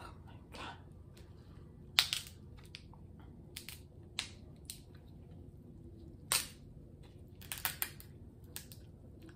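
King crab leg shell being cracked and snapped apart by hand: a series of sharp cracks and crunches, loudest about two seconds in and again after six seconds, with a quick cluster of smaller snaps near the end.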